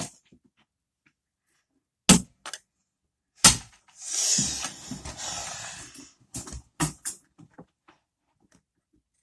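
Sharp snapping clicks of a homemade spring-loaded mechanical-pencil rocket being fired and knocking against things, followed by a couple of seconds of rustling and a few more small clicks near the end.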